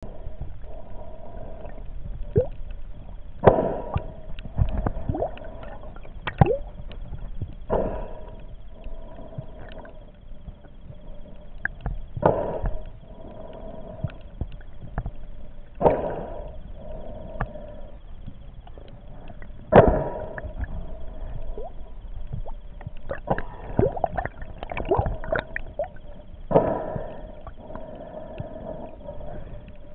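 Water sloshing and gurgling against an underwater camera, muffled, with irregular knocks and swells every few seconds as the camera moves, over a steady hum.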